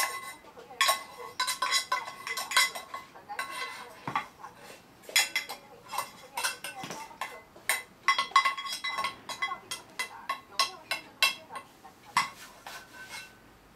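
Utensil clanking and scraping around inside a small pan in irregular runs of quick clinks, the pan ringing briefly after the harder hits: a toddler's pretend stir-frying.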